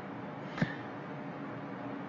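A pause between speech: faint steady background hiss and hum, broken by a single short click a little over half a second in.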